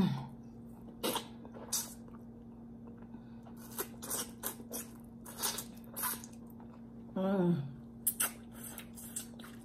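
Close-up eating sounds: wet lip-smacking and chewing clicks as stewed turkey neck meat is eaten off the bone with the fingers. About seven seconds in comes a short hummed 'mmm' that falls in pitch.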